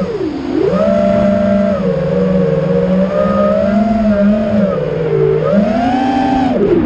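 FPV quadcopter's brushless motors whining, several pitches gliding together as the throttle changes: a dip about half a second in, fairly steady through the middle, a rise about six seconds in, then a sharp drop near the end.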